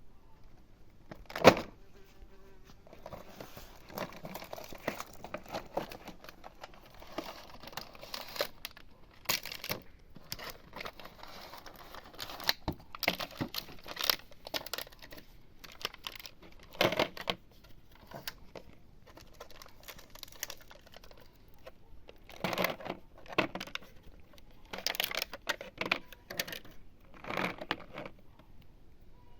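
Plastic packaging crinkling and rustling in spells, with sharp clicks and knocks in between; one loud knock comes about a second and a half in.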